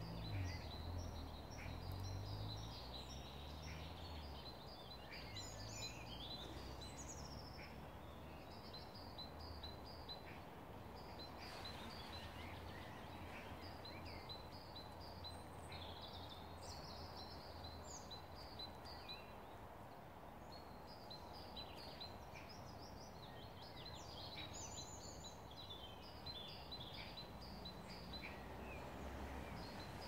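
Woodland birdsong: several small birds singing at once, with quick runs of high, evenly repeated notes. Underneath is a faint low rumble, strongest in the first few seconds.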